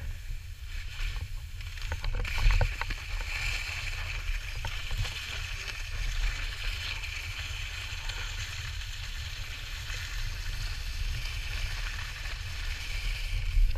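Skis hissing steadily over snow, with wind buffeting the microphone in a low rumble and a few light knocks about two seconds in.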